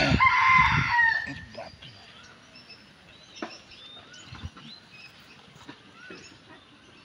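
A rooster crows once, about a second long, its pitch holding and then falling at the end. Faint bird chirps follow.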